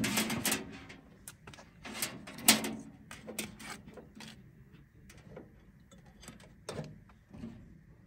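Clicks and knocks of objects being handled, loudest and most frequent in the first few seconds, then thinning out, with a faint steady high-pitched tone from about three seconds in.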